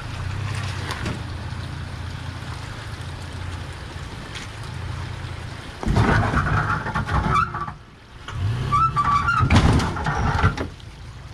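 Toyota Tacoma pickup crawling through a muddy, rutted trail. Its engine runs steadily at low revs, then about six seconds in come two louder stretches of engine and scraping as the truck climbs over the rock ledge.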